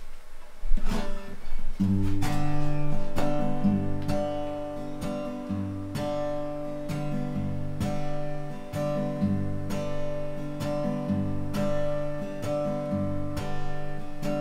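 Acoustic guitar strummed in a steady rhythm, with a few opening strums and then a regular chord pattern settling in about two seconds in.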